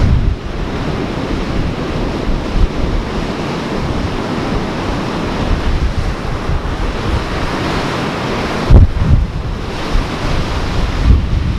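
Ocean surf washing steadily, with wind buffeting the microphone in low rumbling gusts, the strongest about nine seconds in.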